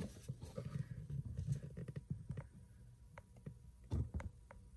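Faint handling noise: scattered light clicks and taps over a low rumble, with a few soft knocks about four seconds in.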